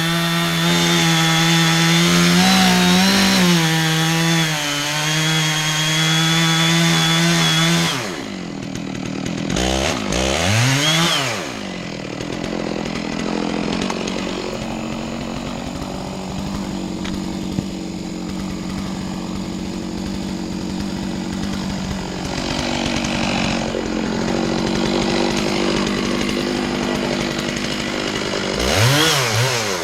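Two-stroke chainsaw running at full throttle through wood for about eight seconds, then dropping to idle. It is blipped about ten seconds in, idles for a long stretch, and revs briefly again near the end.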